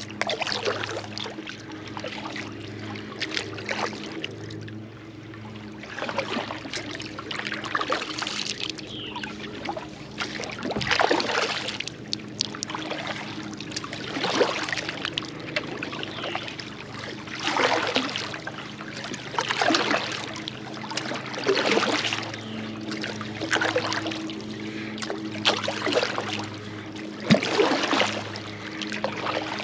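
Double-bladed kayak paddle dipping into lake water stroke after stroke, splashing and trickling off the blades in a steady rhythm about every two seconds.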